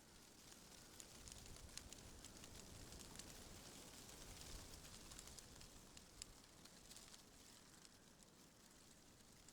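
Faint wind rustling through tree leaves: a soft, even hiss that swells a little through the middle, with many tiny crackling ticks from the leaves.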